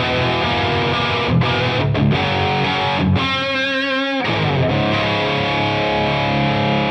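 Heavily distorted electric guitar riffs played through the Surprise Sound Lab Flex15 single-ended valve amp, on its second channel with distortion and volume full up. About three seconds in, one note is held for about a second, wavering in pitch.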